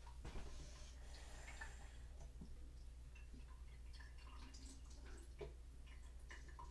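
Faint drips and small splashes of water being added into a plastic test tube, with light ticks from handling.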